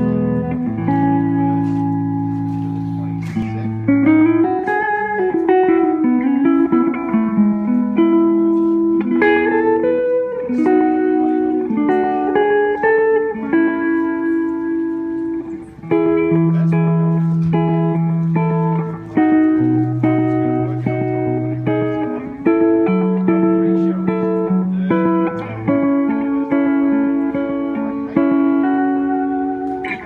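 Shabat Bobcat electric guitar with Lollar Imperial pickups, played through an amplifier: slow, long-ringing chords and single notes, with one note bent up and back down about four to seven seconds in.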